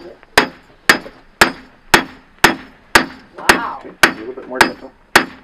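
Hand hammer striking a hot carriage bolt on a small anvil, flattening it into a knife blade: a steady run of about ten blows, roughly two a second, each with a short ring.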